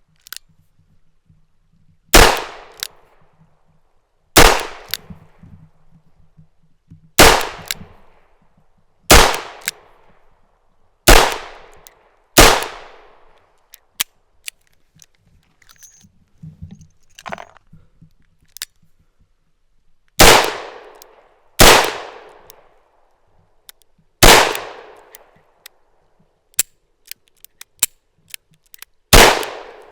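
Ruger GP100 double-action revolver firing: six shots about two seconds apart, each with a short echoing tail. A pause of several seconds follows with only small metallic clicks, then four more shots.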